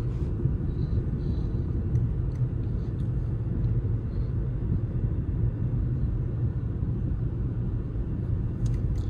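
Steady low rumble inside a moving manual car's cabin as it coasts in neutral: road and tyre noise with the engine idling.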